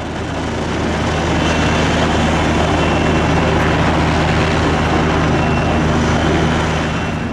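Military helicopter in flight: a steady low rotor throb with several steady low tones over a broad rushing noise, swelling over the first second or so.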